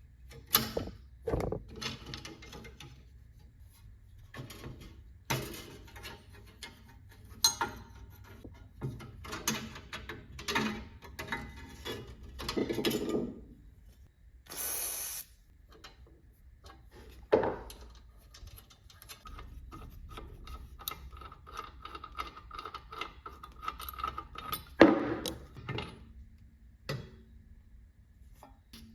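Hand tools and metal band-saw parts clicking, knocking and rattling as the old saw is taken apart, with a short hiss about fifteen seconds in.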